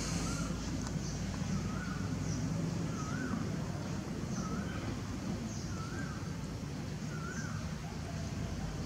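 A bird repeating a short rising-and-falling whistled note about once a second, over a steady low background rumble.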